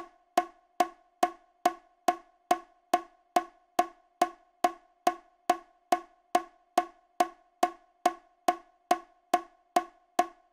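Metronome clicking a steady beat, about two and a half woodblock-like ticks a second, with no instrument playing: the metronome counting through a rest in the bass practice part.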